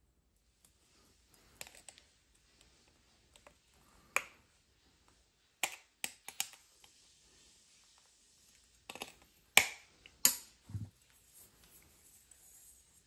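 Irregular sharp clicks and knocks of hard objects, about ten in all, with the loudest pair late on and a duller knock just after them.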